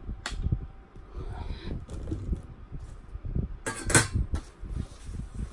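Tableware being handled: a sharp click just after the start and a few soft knocks, then a loud scrape and clink of a fork against the plate about four seconds in, while fried fish is cut.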